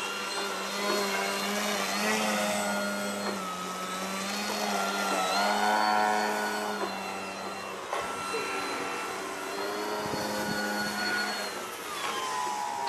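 Electric RC aerobatic plane's brushless outrunner motor (ECO 2820C, 940 KV) and 13x6.5 propeller whining as the Skywing Sbach 342 hangs nose-up in a hover and then climbs. The whine wavers in pitch, is loudest about six seconds in, and drops in pitch near the end.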